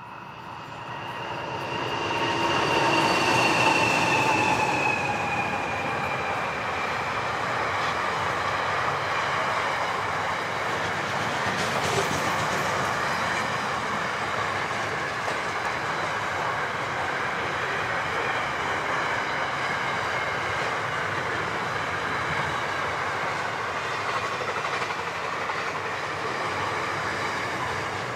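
Pacific National NR-class diesel-electric freight locomotives pass at speed. Their engine tones swell and then drop in pitch as they go by. This is followed by a steady rumble of long container wagons rolling past, with one sharp clank about halfway through.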